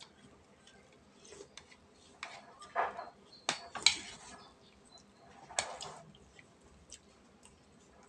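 Spoons and forks clinking and scraping against plates as two people eat, a scattering of short clicks and rattles, the sharpest a little before the middle.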